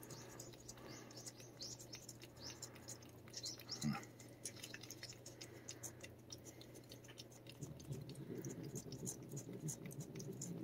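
A cat licking paste treat from the end of a Churu squeeze tube: rapid, faint, irregular wet tongue clicks.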